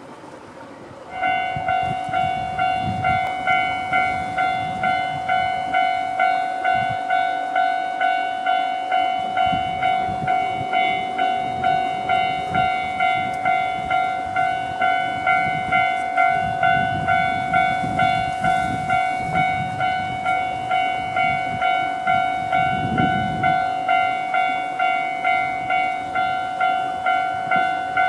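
Japanese railway level-crossing warning bell, the standard electronic alarm, starting about a second in and ringing in a steady repeated pulse of about three strikes every two seconds. It signals that a train is approaching and the crossing is closing.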